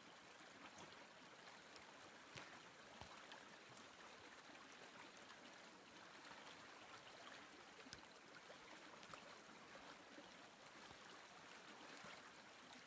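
Faint, steady rush of a half-frozen creek's open water running between snow-covered ice shelves, with a few soft clicks.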